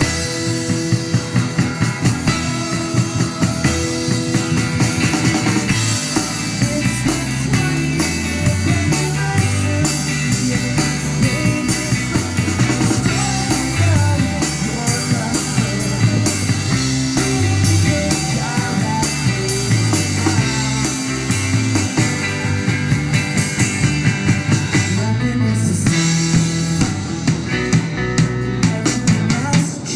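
Live rock band playing a song with a steady drum-kit beat, electric guitar, bass and keyboard, picked up by a phone's microphone.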